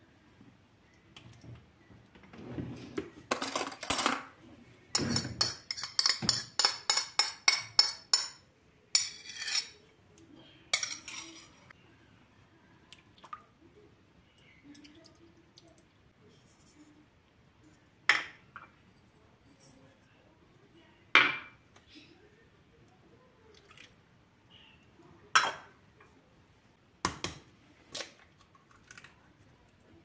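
A spoon scraping and knocking against glass dishes as soft butter and cheese are scraped from a glass plate into a glass mixing bowl: a loud run of quick strokes, about four a second, in the first eight seconds. Then a few single clinks of a utensil on glass.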